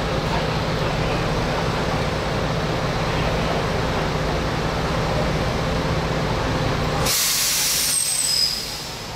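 A heavy diesel engine running with a steady low rumble. About seven seconds in, the rumble cuts off and a loud hiss of released compressed air takes over, with a short falling whistle in it. The hiss dies away after about a second and a half.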